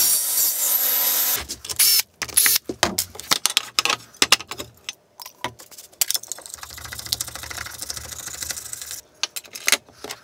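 A table saw cutting through MDF for about a second and a half, stopping abruptly. Then a run of light clicks, knocks and clatter as metal mitre-saw fence sections are handled and set down on a workbench.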